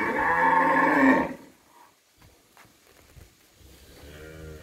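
Cattle mooing: one loud moo lasting about a second and a half, then a second, quieter moo near the end.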